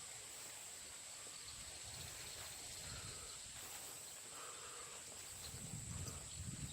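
Faint steady high-pitched insect drone, with soft footsteps on a path, heavier near the end.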